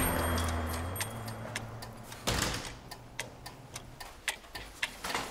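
Steady ticking, about three or four sharp clicks a second. A low hum fades out about a second in, and a brief rushing whoosh comes about two seconds in.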